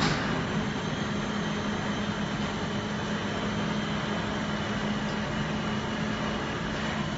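Common rail injector test bench running an injector test, a steady mechanical hum with a constant low tone and hiss. There is a sharp click right at the start.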